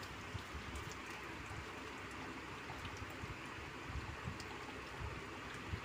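Thin mutton curry gravy simmering in a steel pan: a faint, steady bubbling hiss, with a steel spatula stirring through it.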